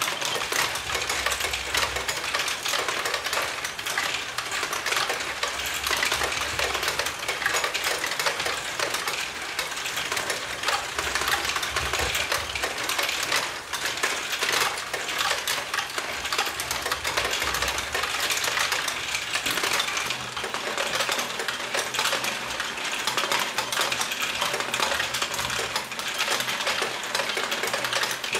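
A LEGO Great Ball Contraption layout running: many small plastic balls clattering and clicking through the moving LEGO modules in a dense, steady rattle.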